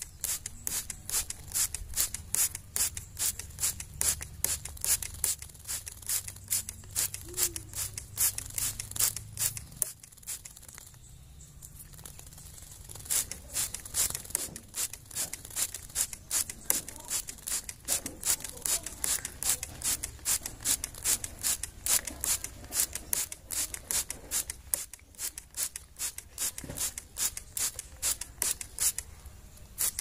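Hand trigger spray bottle squeezed over and over, each pump a short hiss of water mist, about three a second, soaking a caged long-tailed shrike for its bath. The spraying stops for a couple of seconds about a third of the way in, then goes on.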